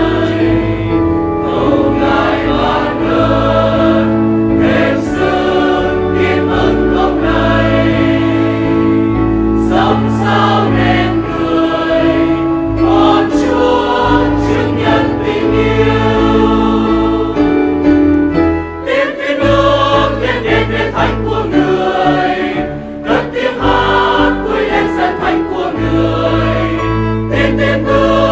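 Church choir singing a Vietnamese Catholic hymn in Vietnamese, over sustained low instrumental accompaniment notes.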